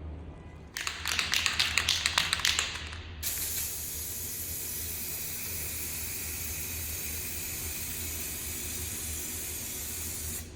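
Aerosol spray-paint can: about two seconds of quick rattling as the can is shaken, then a steady hiss of paint spraying for about seven seconds, cutting off near the end.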